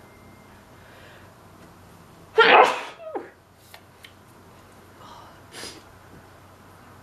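A woman sneezes once, loudly, about two and a half seconds in: an allergy sneeze.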